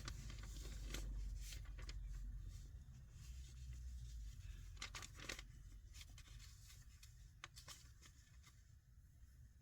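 Faint, scattered clicks, scrapes and rustles from work on a car door, over a low rumble that drops away about four seconds in.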